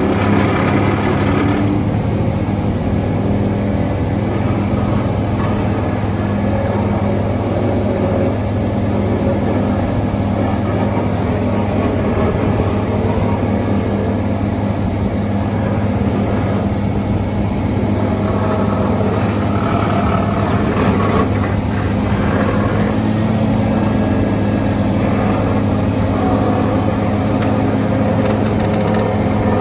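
Hitachi Zaxis 490 LCH excavator and its sheet-pile driving attachment working, a loud, steady, low machine drone with no pause.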